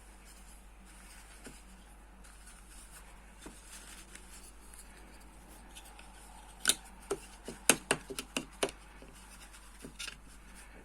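Faint rustling, then a quick run of about eight sharp clicks over two seconds, with a couple of softer clicks near the end.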